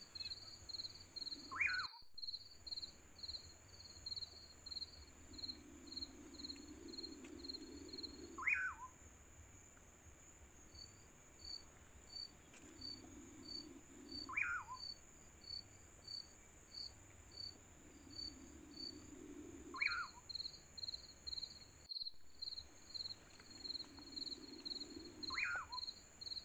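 Added background nature recording: insects with a steady high trill and a pulsed chirping of about two to three notes a second, and a bird giving a short falling call five times, about every six seconds. The track drops out abruptly twice, about two seconds in and near the end, where it has been spliced.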